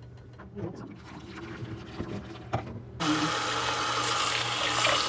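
A few light clicks and knocks of handling, then a kitchen tap turned on about three seconds in, water running steadily into the sink.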